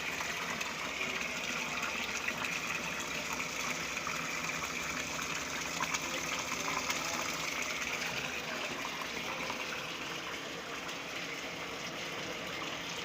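Running water, a steady unbroken pour.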